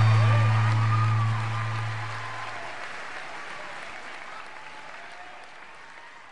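A live rock band's last chord rings out as a low held note over audience applause and cheering. The note dies away about three seconds in, while the applause goes on and fades out steadily.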